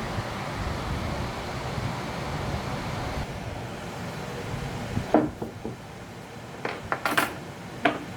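A steady hiss for the first few seconds, then several sharp, ringing metallic clinks of tools and metal parts being handled, the loudest two near the end.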